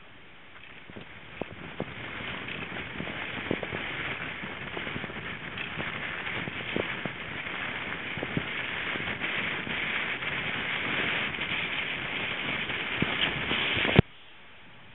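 Wind rushing over the microphone of a moving bicycle, growing gradually louder, with scattered clicks and knocks. The noise cuts off abruptly about a second before the end.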